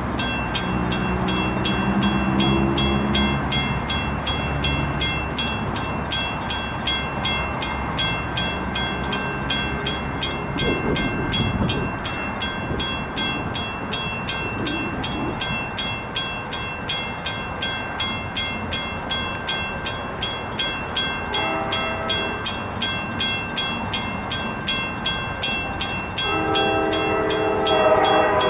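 A train passes while a grade-crossing bell rings steadily, about two strikes a second. A diesel locomotive rumbles through in the first few seconds. A multi-note train horn sounds briefly around two-thirds of the way in, then again more loudly in the last couple of seconds.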